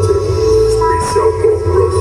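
Music playing: a wavering melody over a steady low bass.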